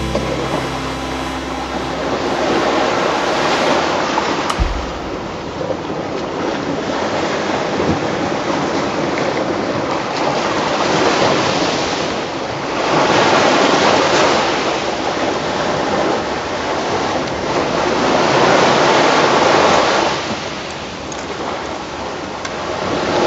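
Sea surf washing on the shore, its rushing noise swelling and fading every few seconds. A single sharp knock about four and a half seconds in.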